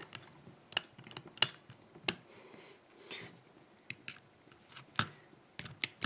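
Scattered sharp metallic clicks and clinks of a barrel padlock's body, plug and small parts being handled and pushed back together by hand during reassembly, loudest around one, two and five seconds in.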